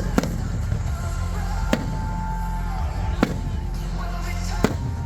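Fireworks going off in single sharp bangs, four of them about a second and a half apart, over loud music with a heavy low bass.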